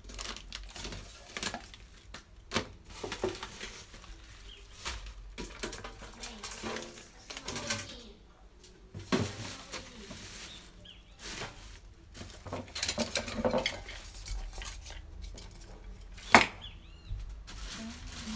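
Hard objects clinking, knocking and being shifted about as stored things are rummaged through, with one sharp, loud knock about sixteen seconds in.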